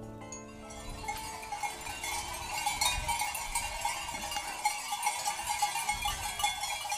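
Many sheep bells clanking unevenly as a flock of sheep moves along, the clinking thickening from about a second in.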